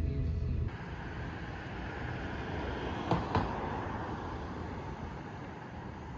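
Road traffic noise: a vehicle passing by, its noise swelling to a peak near the middle and fading, with two sharp clicks at the loudest point. A low rumble cuts off suddenly just under a second in.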